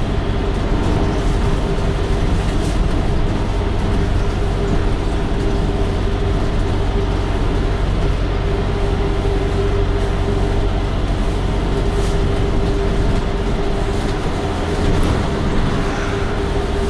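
Steady running noise of a London bus on the move: low engine and road rumble with a constant hum on top.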